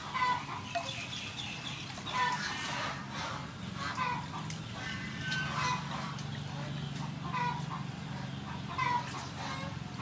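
Chickens clucking in short repeated calls, about one every second or two, over a low steady hum.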